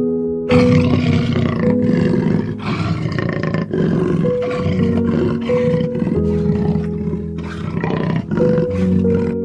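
A large wild animal roaring in a run of rough, broken calls that start about half a second in, over soft background music.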